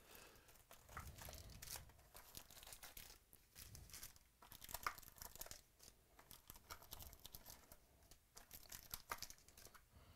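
Faint crinkling and rustling of foil trading-card packs and cardboard as the packs are pulled out of a hobby box and stacked, many small crackles with no voice.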